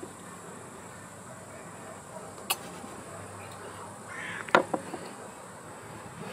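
Steady outdoor background noise, with a sharp click about two and a half seconds in. A brief rustle is followed by a louder sharp knock and two smaller ones about four and a half seconds in, like small objects set down on a wooden tabletop.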